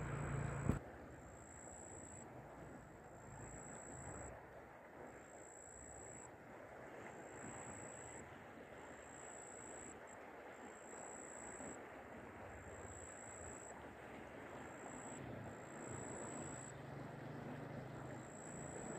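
Faint, steady outdoor rush of wind and the flood-swollen Amu Darya river flowing past the bank. A louder low rumble cuts off suddenly under a second in, and a thin high-pitched buzz comes and goes throughout.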